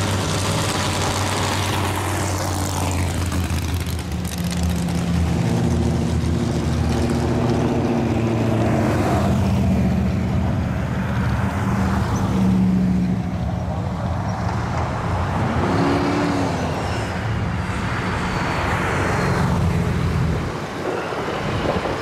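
A car engine idling steadily, with other cars driving past close by. The steady hum stops near the end and gives way to road noise as the car pulls away.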